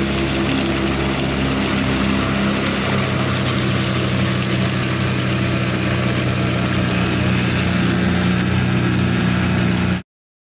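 Small outboard motor on a canoe running steadily under way, with a hiss of wind and water over it. It cuts off abruptly near the end.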